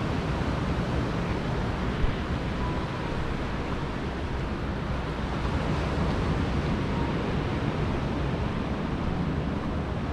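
Steady outdoor rush of wind and ocean surf, with wind buffeting the microphone in the low end. A single sharp click about two seconds in.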